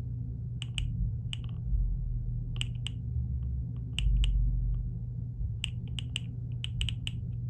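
Clicks of the navigation control on a USM Go+ ultrasonic flaw detector as it is pressed step by step to adjust the sound-velocity setting: a couple of dozen short, sharp clicks in irregular little clusters.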